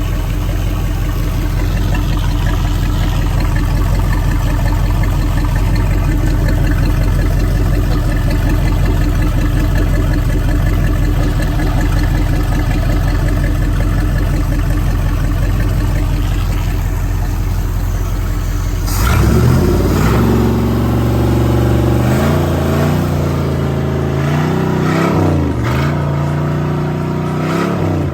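Chrysler 360 V8 marine engine running on its first test run after a complete overhaul, first at a steady idle. About two-thirds of the way through it is revved up and down several times.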